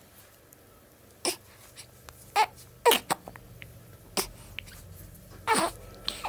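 Repeated hiccups: about seven short, sharp gulps at uneven intervals.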